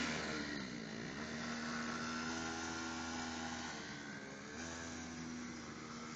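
Small petrol engine of a cheap Chinese children's quad bike, fitted with an added second exhaust silencer, running at steady revs. The revs drop and pick up again twice, about a second in and again about four seconds in.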